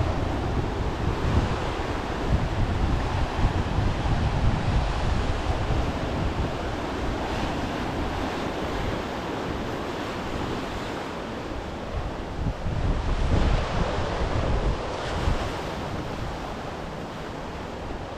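Sea waves washing onto a beach, with wind buffeting the microphone in uneven gusts.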